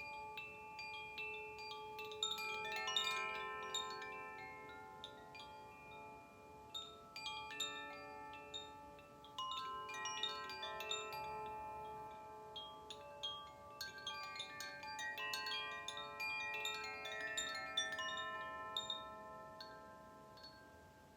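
Koshi chime ringing: its tuned metal rods are struck by the clapper in quick, overlapping tinkles. The sound swells and fades in slow waves, dying away near the end.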